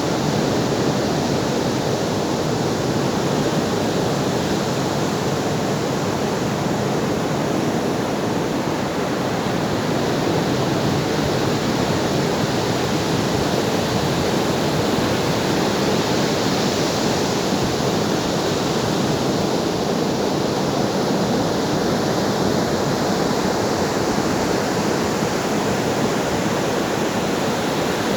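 Ocean surf washing steadily onto a shore, a continuous hiss of breaking waves with only slight swells in brightness.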